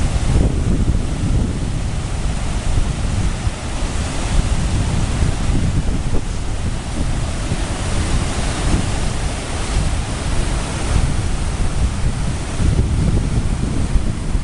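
River rapids running high: a steady rush of churning white water, with wind buffeting the microphone.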